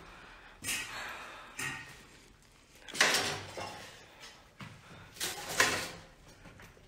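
Toilet stall doors being pushed open: several scraping swings, the loudest about three seconds in, another around five seconds.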